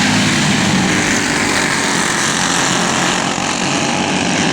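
Briggs & Stratton Animal single-cylinder four-stroke racing kart engines running loudly and steadily during a heat race.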